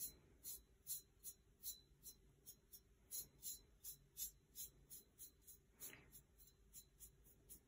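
Faint, quick scratchy strokes of a small bristle brush working ink across a painted tumbler, about two to three strokes a second in an uneven rhythm.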